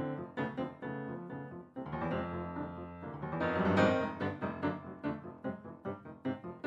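Grand piano played solo: a flowing run of notes that swells to its loudest about four seconds in, then quicker, crisply separated notes.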